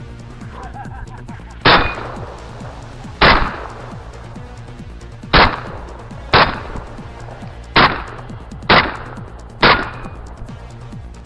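Seven shots from a Saiga-12 semi-automatic 12-gauge shotgun, fired one at a time about one to two seconds apart, each cracking sharply and trailing off briefly.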